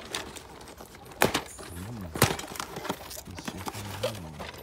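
A cardboard toy box with a plastic window being handled and opened, with rustling and several sharp knocks and clicks, the loudest about a second and two seconds in.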